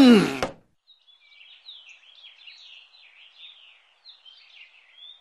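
A short, loud sound sliding steeply down in pitch at the very start, then small birds chirping quietly and steadily as a park background.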